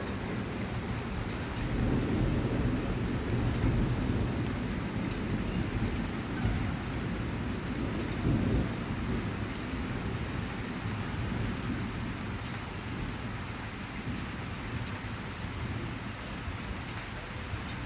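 Steady rainfall with low rolling thunder rumbling underneath, swelling twice and easing off toward the end.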